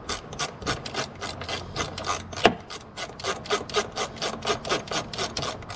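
Hand socket ratchet clicking in a steady run, about five clicks a second, as it backs out a battery tray bolt; one sharper click about two and a half seconds in.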